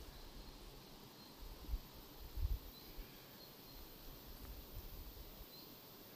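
Faint outdoor ambience: a steady low hiss with a few short, faint high chirps scattered through it. Several low rumbles come and go, the strongest near the middle.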